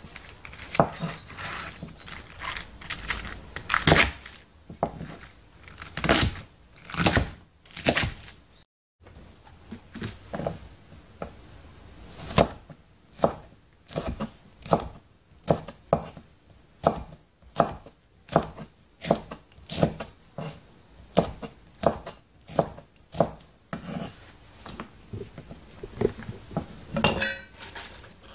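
Kitchen knife chopping on a wooden cutting board, cutting napa cabbage and then chili peppers, a run of sharp knocks at about two a second with a short break about nine seconds in.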